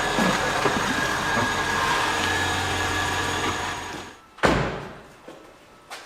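Volvo XC90 running, a steady vehicle noise with a low hum and a faint high whine that fades out about four seconds in. Then comes a single sharp, loud thump, and a small click near the end.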